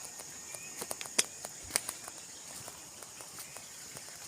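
Steady high-pitched insect chorus of crickets or cicadas. A cluster of sharp clicks and snaps comes about one to two seconds in, the loudest two close together near the middle.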